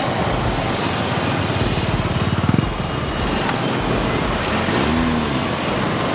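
A pack of motorcycles setting off together, engines running in a steady mass of engine noise. A close engine's throb swells about two and a half seconds in, and one engine revs up and back down about five seconds in.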